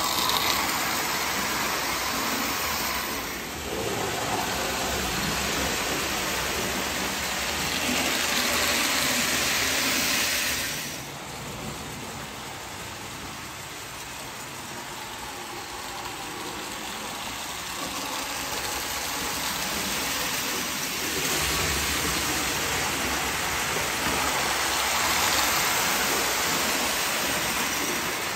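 Marx tinplate toy freight train, pulled by a Commodore Vanderbilt streamlined locomotive, running around the tinplate track: a steady rushing clatter of motor and wheels on the rails. It grows louder and softer as the train passes nearer and farther, dropping about eleven seconds in and rising again later.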